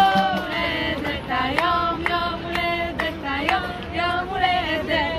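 A high voice singing a melody in long held notes, over light background music.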